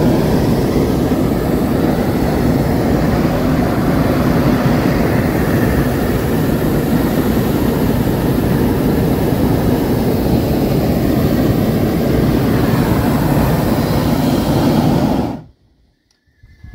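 Hot air balloon's propane burner firing in one long, steady blast of about fifteen seconds, then shut off suddenly near the end.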